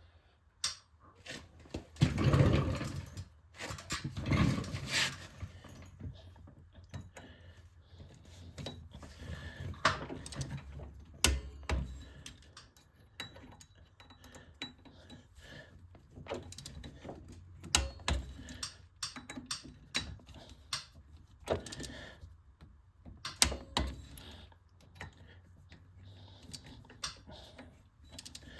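Hand tools and metal parts clinking and knocking while the rear axle hub's bolts are worked on: a scatter of sharp metallic clicks with a couple of heavier clunks about two and four seconds in.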